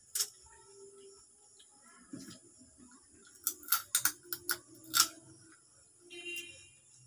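Sharp eating clicks and mouth smacks as crab meat is picked from the shell by hand and eaten: one click just after the start, then a quick run of about seven a little past the middle. A brief high chirp comes near the end.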